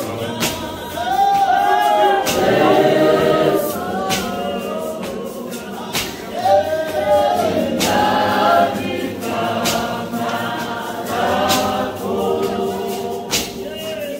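A church congregation singing a hymn in isiZulu, men's and women's voices together, with a sharp beat about every second and a half.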